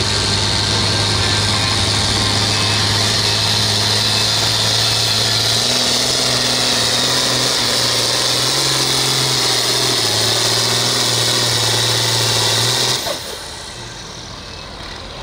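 John Deere 4020 pulling tractor's engine running flat out under load, a steady loud note with a high whine above it. About 13 seconds in it drops off suddenly as the throttle comes back at the end of the pull, leaving the engine running much more quietly.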